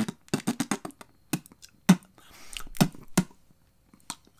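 ASMR-style tapping and clicking: a quick run of about six sharp taps near the start, then single taps every half second or so, with a brief soft hiss about two seconds in.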